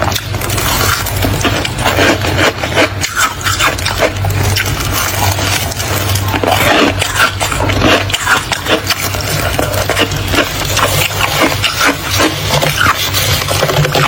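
Thick freezer frost crunching in a dense run of crisp crackles, over a steady low hum.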